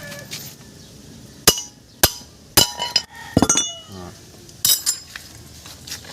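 Metal tools and parts clinking and knocking against each other: about five sharp strikes over some three seconds, several ringing briefly afterwards.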